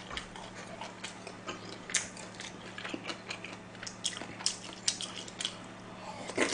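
Close-miked eating: scattered soft clicks of a spoon against a pan and bowl, then mouth smacks and chewing of a spoonful of food. A low steady electrical hum runs underneath.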